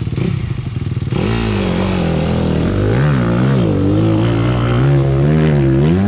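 Dirt bike engine running. About a second in it gets louder and revs, its pitch rising and falling again and again as the throttle is worked.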